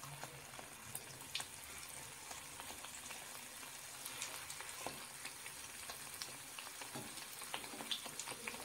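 Mathri dough discs frying in hot oil on a low flame: a soft, steady sizzle with scattered light crackles and ticks, while a slotted steel spoon turns the discs over in the kadai.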